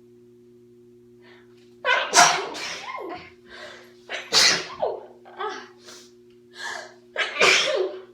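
A woman sneezing: three loud sneezes, about two, four and a half and seven and a half seconds in, with shorter sounds between them.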